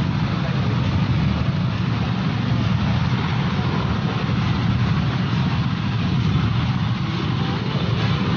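Steady low rumble of a running vehicle engine with an even hiss of road or air noise.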